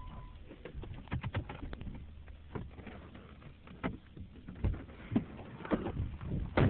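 Irregular clicks, knocks and rubbing from a camera being handled and moved about, with a low rumble. A steady high beep stops about half a second in.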